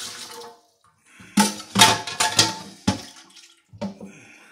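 Kitchen tap water running briefly and stopping, then a string of sharp metallic clanks with a short ring as a metal spoon and a cooking pot knock against each other in a stainless steel sink, with one more clank near the end.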